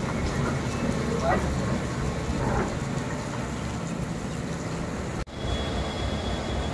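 Steady rushing and rumbling of heavy rain and fast-flowing floodwater, with a brief drop-out about five seconds in. After the drop-out a thin, high, steady whine sits over the noise.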